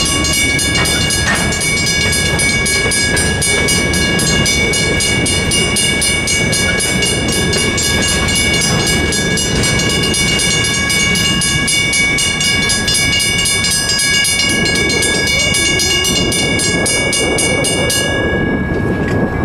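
Two Western Cullen Hayes mechanical crossing bells ringing with rapid, even strikes over the low rumble of freight cars rolling across the crossing. The bells cut off suddenly near the end, once the train has cleared.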